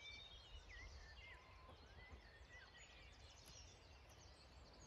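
Near silence: faint outdoor ambience with a low steady rumble and scattered faint birdsong chirps and whistles.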